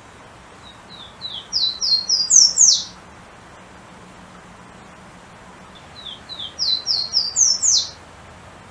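Golden-crowned warbler (pula-pula) singing two songs about three seconds apart. Each is a quick run of short high whistled notes stepping upward in pitch and ending in one sharp downward-sweeping note.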